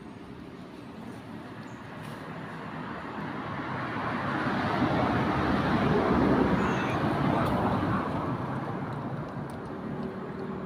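A vehicle passing by on a nearby road: its noise swells over a few seconds, is loudest about six seconds in, then fades away.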